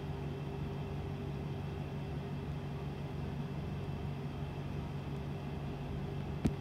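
Steady low hum with faint hiss, and a single sharp click about six and a half seconds in.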